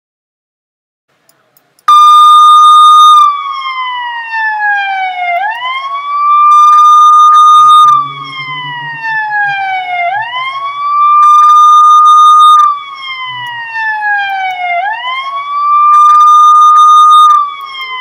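Police siren wailing, loud: it holds a high note, slides slowly down, then swoops quickly back up, repeating about every four and a half seconds. It starts suddenly about two seconds in, after silence.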